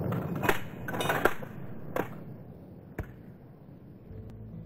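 A series of five sharp cracks or knocks, irregularly spaced over about three seconds and growing fainter. Soft background music fades in near the end.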